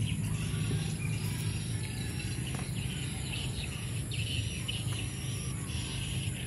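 Rural garden ambience: birds chirping over a steady high insect drone, with a low steady rumble underneath.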